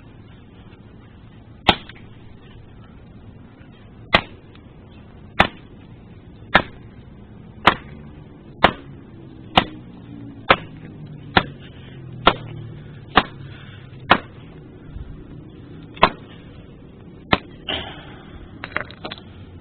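A hatchet repeatedly chopping down on an iPod Touch: about fourteen sharp blows, coming faster until they land roughly once a second, as the player breaks apart. A few lighter clatters of pieces follow near the end.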